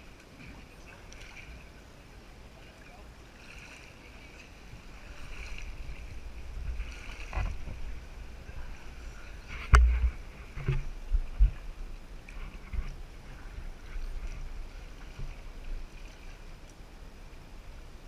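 Paddling an inflatable kayak on calm water: water sounds and low rumbling, with several sharp knocks and thumps in the middle, the loudest about ten seconds in.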